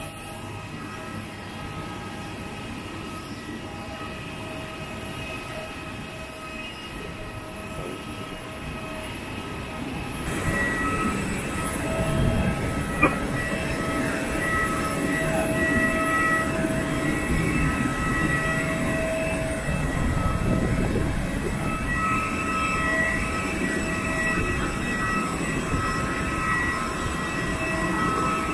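Jet airliner whine on the apron: several steady high-pitched tones over a low rumble, growing louder about ten seconds in.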